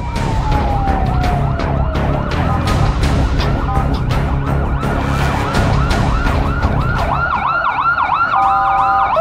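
Several emergency-vehicle sirens sounding at once, wailing and then yelping in fast up-and-down sweeps, over a heavy low rumble of street noise and scattered knocks. A steady multi-tone chord sounds briefly near the end.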